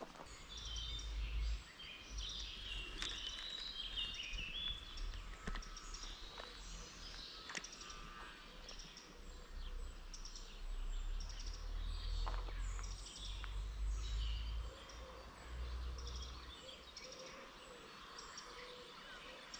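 Small birds chirping and singing on and off, over a low, uneven rumble with a few faint clicks.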